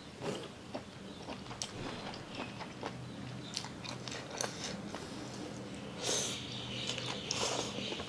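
Close-up mouth sounds of chewing spicy squid salad: wet clicks and smacks, with a louder, hissier stretch about six seconds in, over a faint steady hum.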